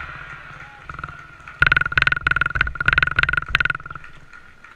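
Spectators cheering a goal: a burst of shouting that is fading at the start, then close-up hand-clapping at about five claps a second, from about one and a half to nearly four seconds in.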